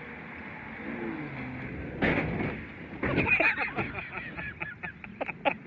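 A car engine running faintly, then a loud impact about two seconds in as the car lands off a dirt jump, followed by shouting and rapid, pulsing laughter.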